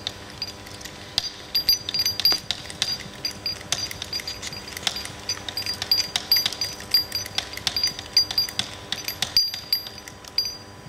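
Hand pump of an Enerpred RTA-50 hydraulic cable cutter worked by its lever: rapid metallic clicking, several clicks a second, with a short pause near the end. The blade is being driven down on an idle stroke with no cable in the jaws, to bleed air from the hydraulic system before cutting.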